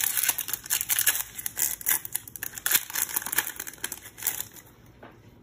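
Foil wrapper of a Pokémon TCG booster pack crinkling as it is opened and the cards are pulled out, a rapid run of crackles that dies away near the end.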